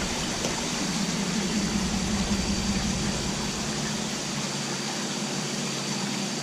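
Steady hum and rushing water from an aerated fish-holding tank, its pump churning the water.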